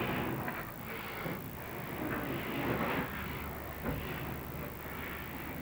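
Rustling, scraping noise from an inspection camera's cable being fed down a dryer vent duct. It swells and fades, with a small click about four seconds in.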